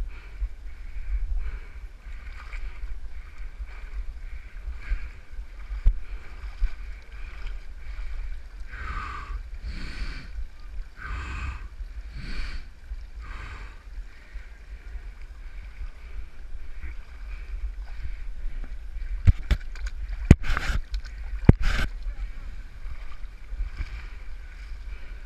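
Muffled handling rumble of a body-worn camera as its wearer moves over a rocky, muddy bank, with a run of rhythmic puffs in the middle and several sharp knocks against the camera about twenty seconds in.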